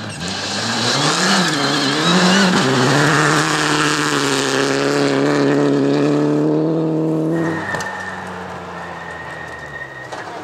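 Rally car engine at full throttle on a gravel special stage. Its revs rise and fall for the first few seconds, then hold one high steady note until about seven and a half seconds in, when the note drops sharply and the sound fades as the car goes by.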